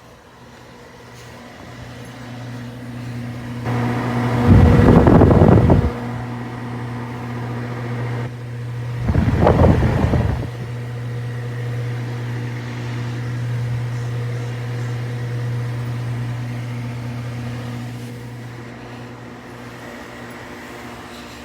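A steady low machine hum that builds over the first few seconds and slowly fades near the end, with two loud rushing bursts about five and ten seconds in.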